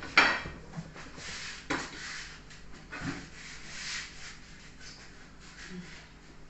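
Several short scraping and rubbing noises with quieter rustling between them.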